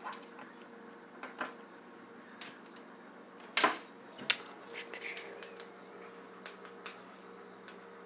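Scattered light clicks and taps of small plastic plugs and wires being handled and plugged together on a tabletop, the loudest knock about three and a half seconds in, over a faint steady hum.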